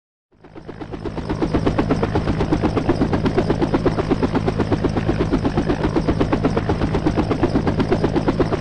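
War sound effect of rapid, evenly spaced pulses, about ten a second, over a steady low hum; it fades in shortly after the start and runs on without a break.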